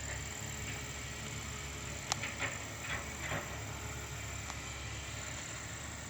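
Steady low drone of a distant engine, with a few faint short bird chirps about two to three seconds in.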